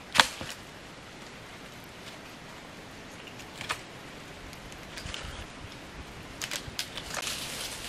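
Sharp snap a moment in, another about three and a half seconds later, then a scatter of light clicks and rustles near the end, from sticks, wooden stakes and a wire grill being handled in dry leaf litter.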